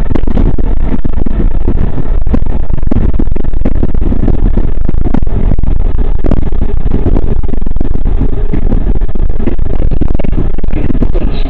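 Market–Frankford Line M-4 subway-elevated car running at speed on elevated track: a loud, steady rumble and rattle of steel wheels on the rails, dense with irregular clicks and clatter, loud enough to overload the recording.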